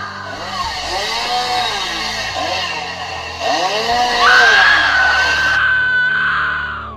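Recorded chainsaw sound effect played through a small portable speaker, the pitch rising and falling twice as it is revved. From about four seconds in, a long, loud, high scream is held and cuts off just before the end.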